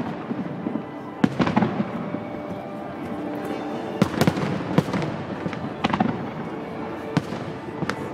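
Fireworks going off: a string of sharp bangs, several in quick pairs, over a continuous crackle.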